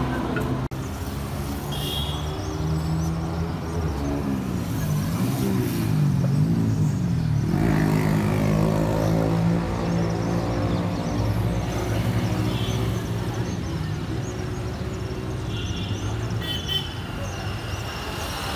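Road traffic: a motor vehicle engine running close by, its pitch falling and then rising again about four to eight seconds in, with a few short high horn toots.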